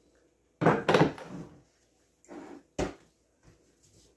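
A cast-iron skillet being handled and set down on a cast-iron trivet on a kitchen counter. There is a loud scraping shuffle just after the start, a softer one a little later, and one sharp clunk near three seconds.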